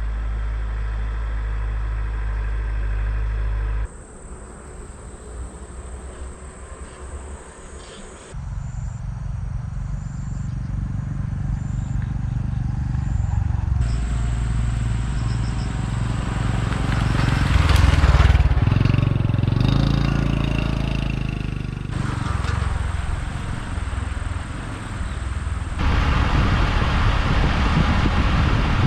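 Honda Super Cub's small single-cylinder engine running on the road, with wind noise, in a string of short clips that change abruptly. It is quieter for a few seconds near the start and loudest about two-thirds of the way through.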